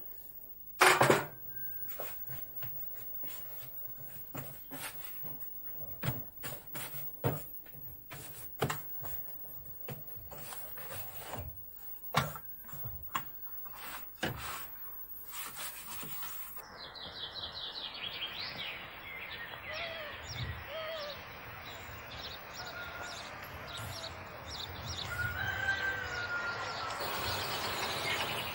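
A run of irregular sharp knocks and clicks, then from about halfway birds chirping over a steady background, with a few longer poultry calls.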